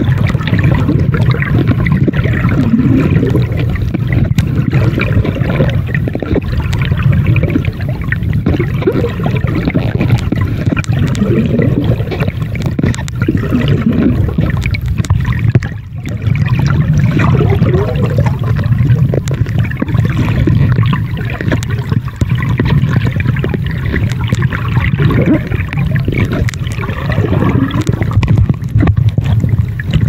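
Muffled, continuous rush and gurgle of water picked up by a microphone underwater, dipping briefly about halfway through.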